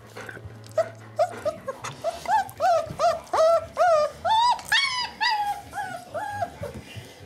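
Four-week-old puppy whimpering in a run of short, high, arched cries, about three a second, rising in pitch and loudness midway before easing off near the end.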